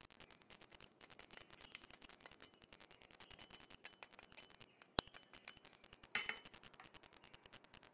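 Faint crackling and small clicks from the crispy vegetable pancakes being handled on a ceramic plate, with one sharp click about five seconds in and a short, louder scrape about a second later.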